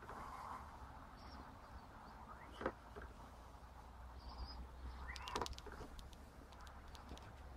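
Hand-operated gear-oil bottle pump squeaking faintly with two slow strokes, each squeak rising in pitch, with a few light clicks after the second, as gear lube is pumped up into the outboard's lower gearcase.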